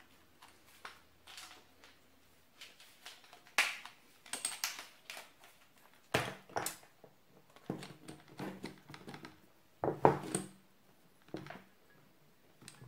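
Scattered knocks and clatter as a power drill and a steel threaded rod are handled and the rod is fitted into the drill's chuck, with the loudest knock about ten seconds in. The drill motor is not running.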